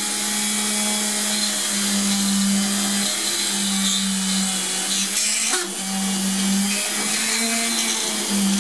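Small benchtop drill press running with a steady motor hum, its bit boring into a cured polymer clay bead held up against it by hand. There is a brief click a little past halfway.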